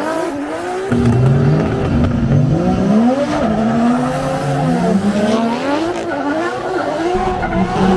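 Drift car engines revving hard, the note rising and falling again and again as the throttle is worked through a drift run, with tyre squeal. The engine sound swells about a second in.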